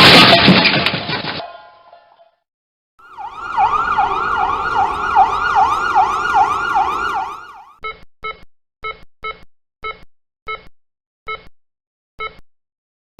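The end of a car crash sound effect fading away, then a fast-warbling electronic siren for about four seconds, then a run of about ten short electronic beeps.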